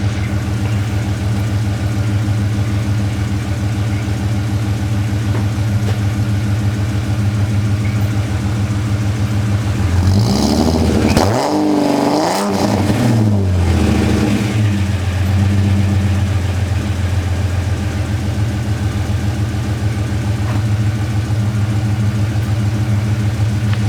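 Holden VS Commodore engine idling through a 2.5 inch cat-back exhaust with Pacemaker extractors. Around the middle it is revved up and back down, then settles back to a steady idle.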